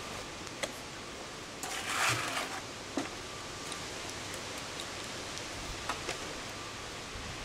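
Trowel work with mortar on cascade stones: one brief scrape about two seconds in and a few light clicks of metal or stone, over a steady outdoor hiss.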